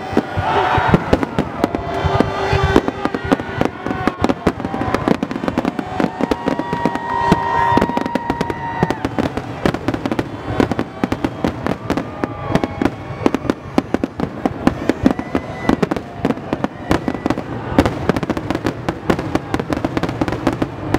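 Aerial fireworks display at its finale: a dense, unbroken barrage of shell bursts and crackles, several bangs a second, with sustained tones underneath.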